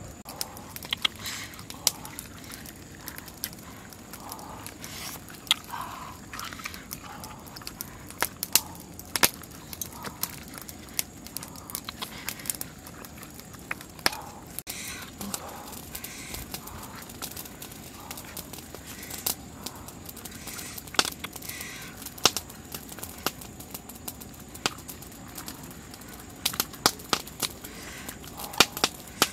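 Hands handling whole raw red tilapia and mushrooms in a wicker basket and on a bed of sticks: scattered small clicks and crackles, with a few louder snaps near the end.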